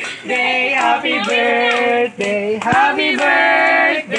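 Several voices, men and women, singing together, with long held notes and one note wavering near the end.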